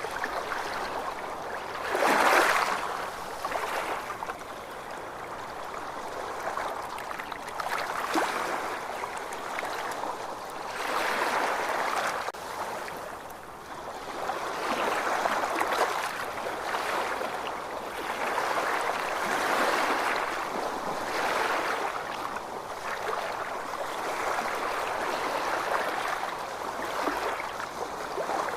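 Ocean waves washing in, a steady hiss of water that swells and ebbs every few seconds, with one louder surge about two seconds in.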